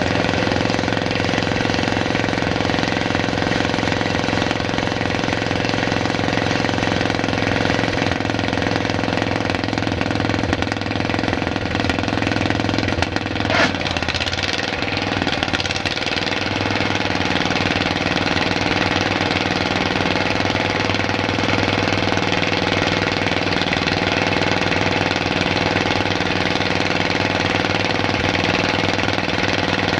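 Caterpillar D8H's small gasoline pony (starting) motor running fast on a cold start, with a rapid clattering, knocking beat. A single sharp knock cuts through about halfway through.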